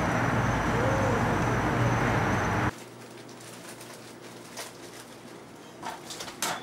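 Steady outdoor night ambience with a low hum, cut off abruptly about two and a half seconds in. What follows is a quiet shop interior with a few faint clicks as a glass front door is pushed open near the end.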